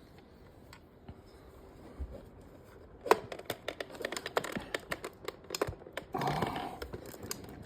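Rapid small plastic clicks and taps from the parts of a Samsung fridge's water dispenser lever being handled and pushed into place, starting about three seconds in.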